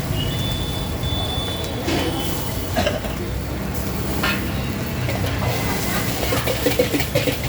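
Cooking in a pan over a burner: a steady low rumble with a few short knocks of a utensil against the pan.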